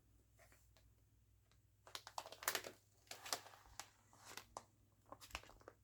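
Faint crinkling and irregular clicks of plastic stamp-storage pockets and binder pages being handled and turned, starting about two seconds in.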